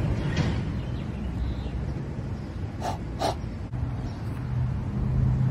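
Two short puffs of breath blown into a cupped hand, about three seconds in, to smell his own breath. A low rumble of vehicle engines from passing traffic underneath fades over the first half.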